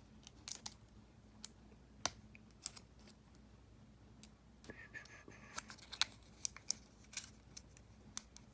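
Faint crinkling and ticking of a foil trading-card booster pack being handled and torn open by hand: scattered small clicks, with a denser patch of rustling about five seconds in.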